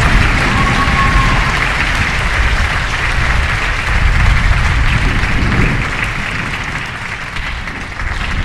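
Thunderstorm ambience: a dense, steady hiss like heavy rain over a low rumble, easing somewhat past the middle.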